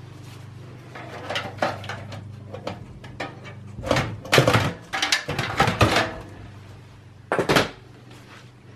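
Metal power supply unit being slid and lifted out of a steel PC tower chassis: scraping and knocking of metal on metal. The knocks come in a loud cluster in the middle, with one more knock near the end.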